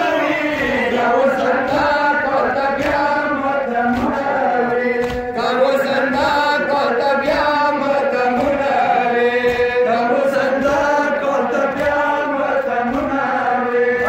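A noha, a Shia lament, chanted in long drawn-out sung lines.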